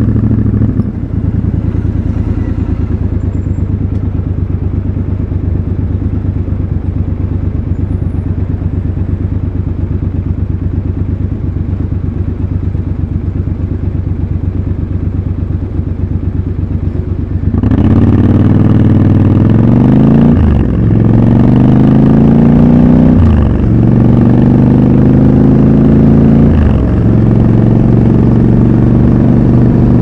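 Triumph Scrambler 1200 XC's 1200 cc parallel-twin idles steadily for about seventeen seconds, then revs hard as the bike pulls away. Its pitch climbs through the gears with three quick upshifts a few seconds apart.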